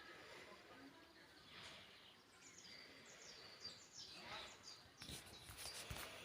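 Faint outdoor quiet with a small bird calling: a run of short, high, downward-sliding chirps in the middle, then a few light clicks near the end.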